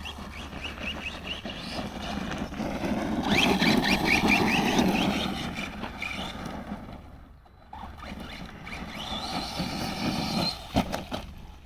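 Rival MT10 RC monster truck's electric motor whining as the truck is driven hard over dirt, with a rough crunch of tyres on the ground. It is loudest a few seconds in, eases off briefly a little past halfway, then picks up again with a rising whine.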